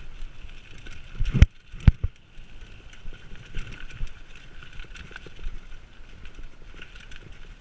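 Mountain bike rolling fast down a dirt singletrack: tyres on dirt and leaves and the bike rattling over the bumps, with two sharp knocks about a second and a half and two seconds in.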